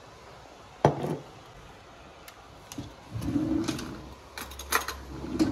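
Kitchen handling sounds as jars and utensils are moved on a countertop: a sharp knock about a second in, then a run of quick clicks and clinks near the end.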